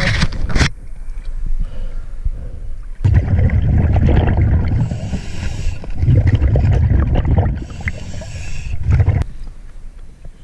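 Scuba diver breathing underwater through a regulator: two rounds of exhaled bubbles rumbling, each followed by the hiss of an inhale, after a brief splash as the camera goes under near the start.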